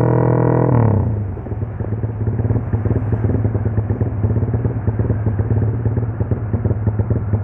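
Motorcycle engine held at high revs, then dropping about a second in to a low, uneven running with fast, irregular popping. This is the 'drum band' sound setting tuned into its Juken 5 ECU.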